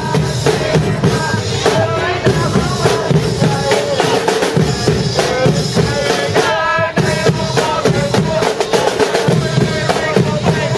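Background music with a heavy, steady drum beat and a melody line over it.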